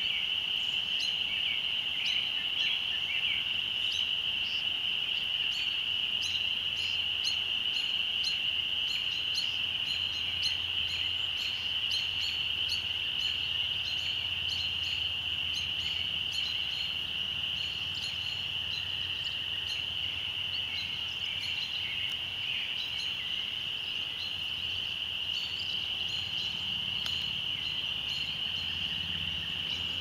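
A dense chorus of spring peepers forms a continuous high-pitched ringing, with many short bird chirps scattered over it.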